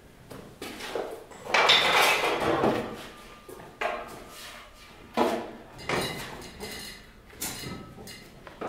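A large wooden board being picked up, handled and set down on a table: a string of wooden knocks and clatters, with a longer rasping scrape about a second and a half in.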